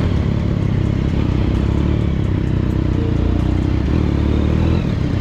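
Triumph Daytona 675's inline three-cylinder engine running steadily at low revs as the motorcycle rolls slowly.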